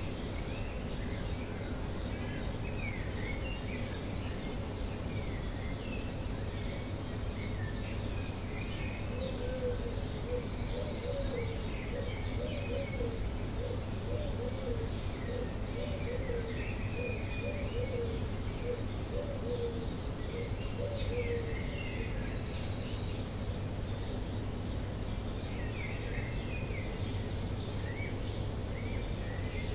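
Dawn chorus: several garden songbirds singing overlapping trills, chirps and phrases throughout. From about nine seconds in to about twenty-two seconds, a lower bird call repeats in a long run of short notes. A steady low background rumble runs underneath.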